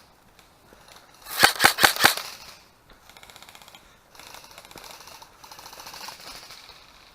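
Airsoft rifle fired close by: four sharp shots in quick succession, followed by a faint, rapid rattle of more airsoft fire further off.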